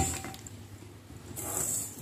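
Dry fried broken wheat (dalia) sliding and rustling out of a steel pan into a pressure cooker, with a metal knock of the pan against the cooker right at the start and a louder rustle of grain about one and a half seconds in.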